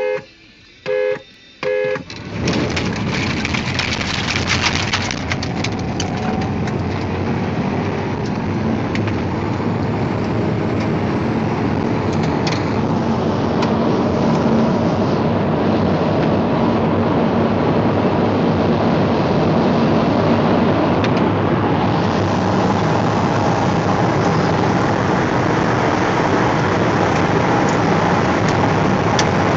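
Three short beeps, then a Pontiac Grand Prix GXP's V8 pulled hard at full throttle, heard from inside the cabin with heavy wind and road noise, growing louder as speed builds.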